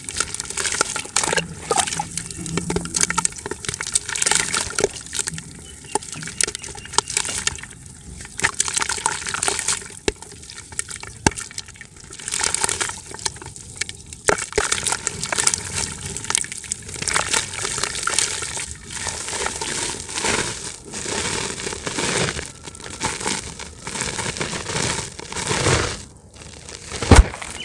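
Dry, chalky dirt chunks being crushed and crumbled by hand into a bucket: dense crunching and crackling, with grit and powder pattering and hissing down into it. A heavier thump comes near the end.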